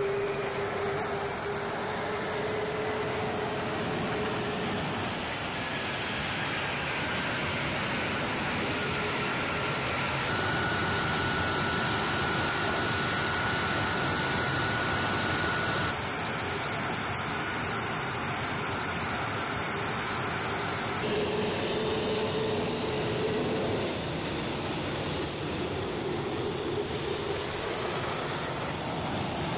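KC-135R Stratotanker's CFM56 (F108) turbofan engines running as the tanker taxis: a steady jet rush with a thin high whine and a lower hum. The sound shifts abruptly a few times.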